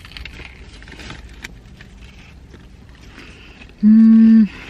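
A woman chewing a bite of pizza bread, with faint clicks and crinkles, then near the end a loud, steady hummed "mmm" of enjoyment lasting under a second.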